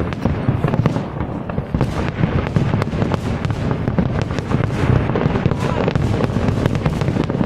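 Aerial fireworks going off in rapid, overlapping succession: a dense string of sharp cracks over a continuous low rumble of bursts.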